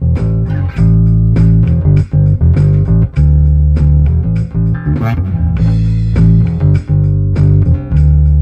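Fender P&J Ultra electric bass played through a Traynor YBA300 all-tube bass amp head, the mic'd cabinet blended with the amp's DI signal, over a drum loop from a looper pedal. Sustained bass notes ride under steady drum hits, with a cymbal-like wash about five seconds in.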